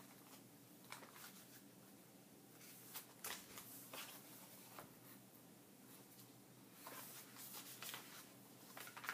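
Faint rustling of sticker sheets in plastic packaging being picked up, shuffled and laid down, in short scattered bursts with a few light taps.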